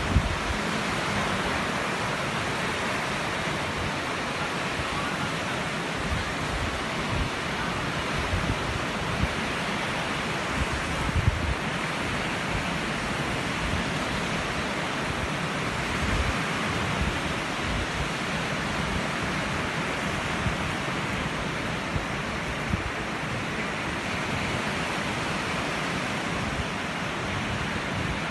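Steady rushing wind noise on the microphone, with uneven low buffeting throughout.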